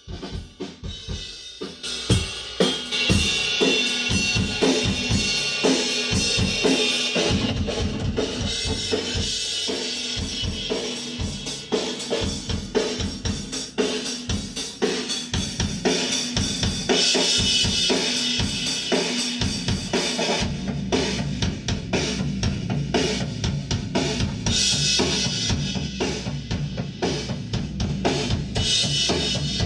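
Rock drum kit playing a steady groove at a sound check: kick drum, snare and cymbals. About two-thirds of the way in, a bass guitar joins with a low sustained line under the drums.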